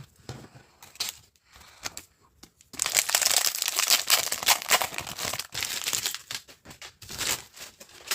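Foil wrapper of a Pokémon card booster pack crinkling as it is torn open, a dense crackle starting about three seconds in and lasting about four seconds, with softer rustles around it.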